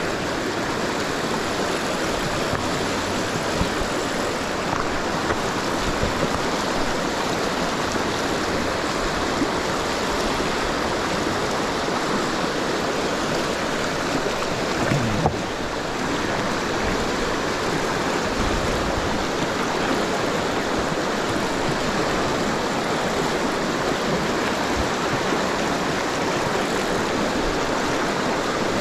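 A fast river runs steadily over rocks, an even rush of water with no let-up. There is a brief knock about halfway through.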